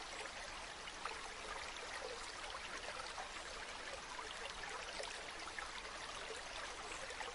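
Bamboo water fountain: a steady trickle of water splashing into a pool, with many small drips and splashes throughout.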